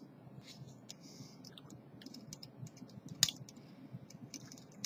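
Hand dental scaler (a Montana Jack) scraping and clicking against a molar inside the mouth: a run of faint, irregular clicks, with one sharper click about three seconds in.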